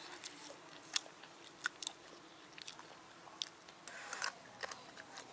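A man biting and chewing a crisp-fried masala chicken drumstick, with scattered sharp crunches and clicks and a denser bout of crunching about four seconds in.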